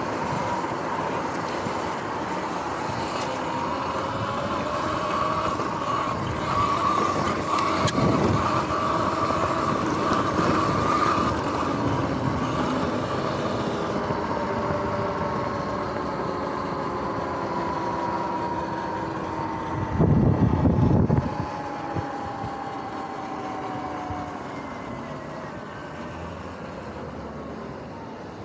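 Sur-Ron X electric dirt bike's motor and drivetrain whining while riding, the whine rising and falling with speed and sliding down in pitch through the second half as the bike slows. A short, loud rush of noise about twenty seconds in.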